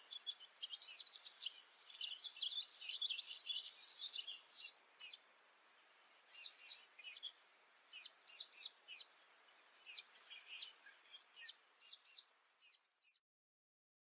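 Orange-breasted sunbird calling: a rapid, high-pitched twittering for the first several seconds, then a run of short, separate high chips, several a second.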